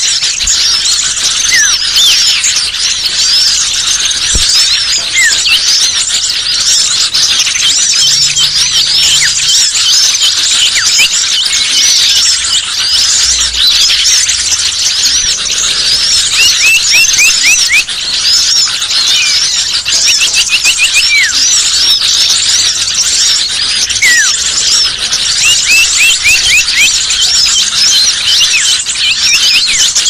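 Loud, dense chorus of many small songbirds chirping and twittering over one another, high-pitched, with quick runs of short repeated notes now and then. It is a bird-catcher's lure recording of noisy small birds, used to call wary birds down.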